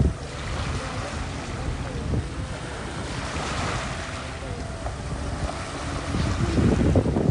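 Sea waves washing on a shore, with wind buffeting the microphone in low rumbling gusts that are strongest near the start and towards the end.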